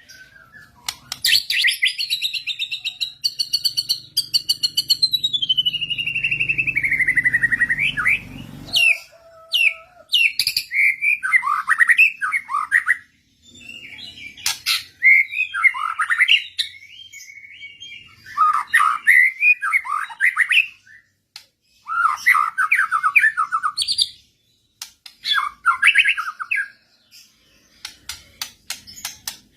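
Murai (Copsychus songbird) singing: a long, rapid, falling trill over a low hum for the first nine seconds or so, then a string of short, varied whistled phrases with brief pauses between them.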